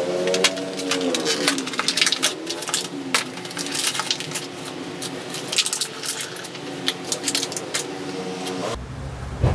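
Metal clinking and tapping as tools and drum-brake parts are handled on a workshop floor. A droning hum that bends in pitch sits underneath at the start and again near the end.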